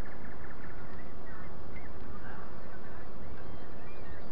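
Scattered short bird calls, some of them honking waterfowl, over a steady background noise with a faint steady hum.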